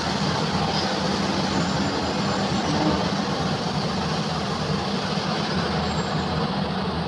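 SANY SY500 excavator's diesel engine running steadily under load as the bucket digs into broken overburden rock.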